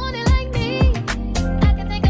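Background music: a song with a sung vocal over a steady beat of about two thumps a second.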